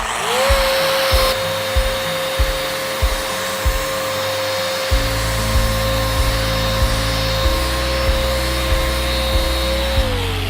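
Festool Rotex sander running in its aggressive Rotex mode on a clamped workpiece: the motor winds up to a steady whine over a sanding hiss, then winds down near the end.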